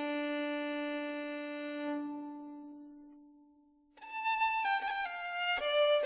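Violin music: a long held note that slowly dies away, then a new phrase enters about four seconds in with notes stepping downward.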